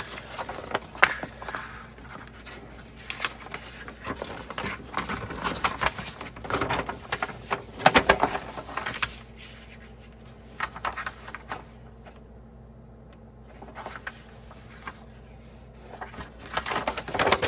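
A folded paper poster being unfolded and handled, rustling and crinkling in irregular bursts, with a short lull about twelve seconds in.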